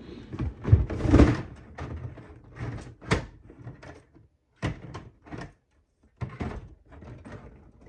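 Handling noise: a string of separate knocks and clunks at uneven spacing as objects are picked up, moved and set down, with short quiet gaps between.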